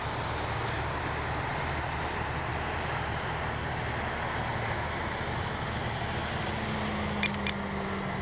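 Steady low rushing noise, heaviest in the low end, with no distinct events. A faint steady hum joins it about six and a half seconds in.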